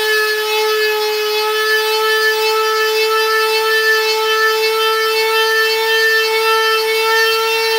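Electric palm sander running at full speed with a steady whine as it sands a cured UV-resin finish with 220-grit paper, its pitch starting to drop as it is switched off right at the end.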